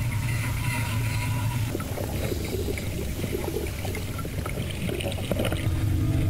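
Water flooding into a sinking car's cabin, sloshing and bubbling around the occupant, over a steady low hum. Music with sustained tones starts near the end.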